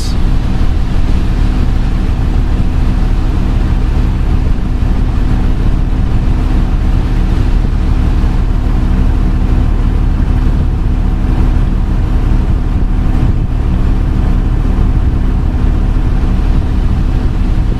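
Steady in-cab drone of a Dodge Ram 2500's 12-valve Cummins 5.9-litre inline-six diesel running, mixed with the heater blower fan pushing air through the dash vents.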